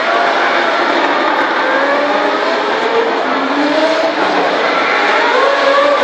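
A pack of race cars accelerating down the straight, several engines at once, each climbing in pitch and dropping back at upshifts, over and over.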